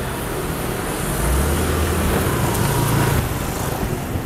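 Street traffic of cars and motor scooters driving past close by. One vehicle's low engine hum swells from about a second in and fades after about three seconds.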